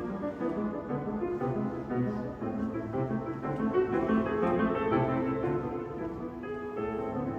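Piano trio playing: piano with cello and violin, in a reverberant cathedral.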